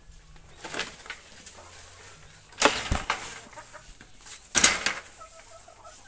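Leafy neem branches rustling and brushing close to the microphone, in a few loud swishes, the strongest about two and a half and four and a half seconds in.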